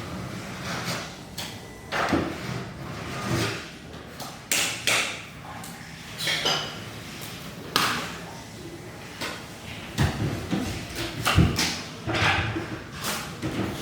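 Irregular knocks, clicks and thuds as a wooden blockboard cupboard is handled and fitted, with heavier thuds in the second half.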